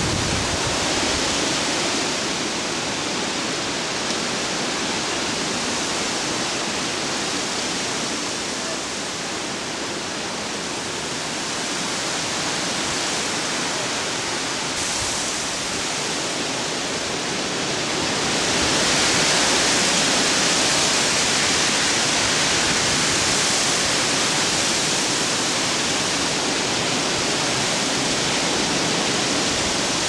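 Hurricane-force storm wind rushing through trees and shrubs, a dense steady hiss of thrashing leaves and branches. It strengthens about two-thirds of the way in as a stronger gust comes through.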